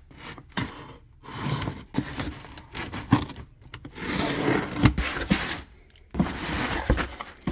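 Objects being handled: irregular scraping and rustling with short clicks and knocks.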